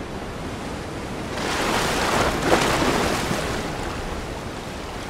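Ocean surf washing onto a sandy beach: a wave swells about a second and a half in, peaks near the middle, then eases back to a steady wash.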